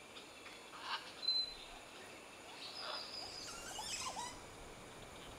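Birds calling: scattered short whistles and chirps, some sliding in pitch, over a faint background hiss.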